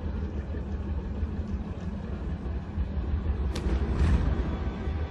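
Tank engine idling with a steady low rumble. About three and a half seconds in, a single sharp metallic clank as the tank's hatch is opened.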